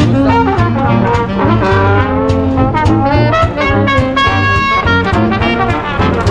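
Background music: a brass-led tune over a steady beat and pulsing bass.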